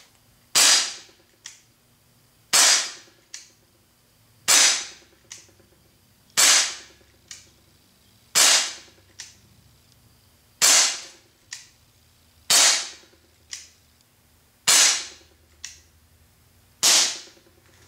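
Gamo PT-85 .177 CO2 blowback pellet pistol fired nine times, one sharp crack about every two seconds. Each shot is followed less than a second later by a fainter click.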